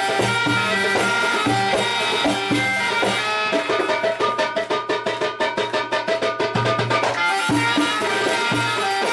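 Egyptian belly-dance music with melody instruments over hand-drum rhythm. From about a third of the way in, the drums switch to a fast, even run of strokes for about three and a half seconds before the groove resumes.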